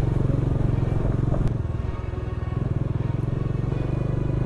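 Bajaj Dominar 400's single-cylinder engine running steadily as the motorcycle rides along a gravel track, easing off slightly about two seconds in.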